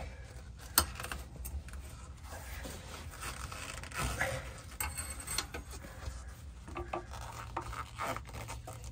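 Scraping and clicking of a screwdriver and the rubbery Sumo Spring being forced and pried into its metal mount over a van's rear axle, with a sharp click about a second in and a run of louder scrapes midway.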